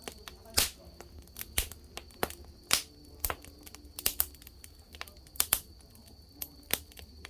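Wood campfire crackling, with irregular sharp pops.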